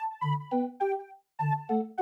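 Background music: a light, bouncy melody of short notes that each fade quickly, with a brief pause about two thirds of the way through.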